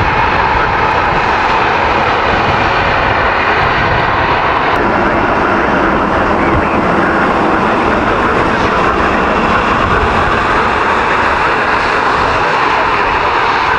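Gulfstream G650ER business jet taxiing, its two rear-mounted Rolls-Royce BR725 turbofans running with a steady, loud jet noise.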